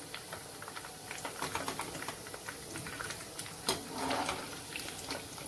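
Chicken strips deep-frying in hot oil in a kadhai: a steady crackle of small irregular pops over a soft sizzle.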